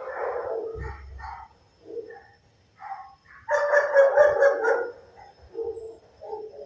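Shelter dogs barking in the kennels: scattered single barks, with a louder run of quick barks about three and a half seconds in that lasts over a second.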